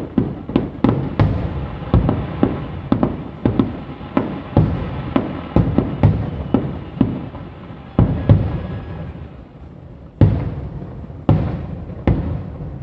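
Aerial firework shells bursting in rapid succession, each boom echoing. There are several a second at first, thinning after about eight seconds to a few single heavy booms.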